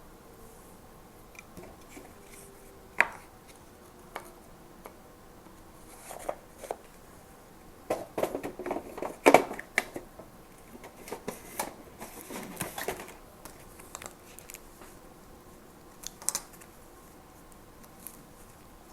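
Paper and stationery being handled at a desk: scattered light taps and rustles, busiest for several seconds around the middle.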